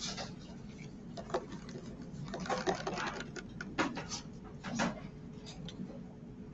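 Pencil drawing along a plastic ruler on paper: a run of short scratching strokes with small ticks, busiest about two to three seconds in, with a few more near four and five seconds.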